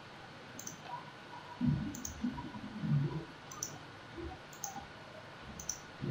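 Computer mouse clicking: short, sharp press-and-release click pairs about once a second. Some low muffled sounds come between about one and a half and three seconds in.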